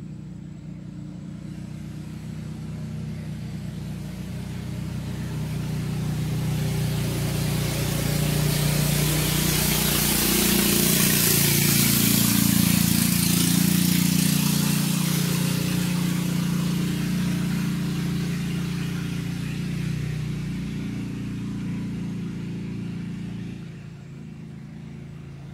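Engine of a passing vehicle, swelling slowly to a peak about halfway through and fading away near the end.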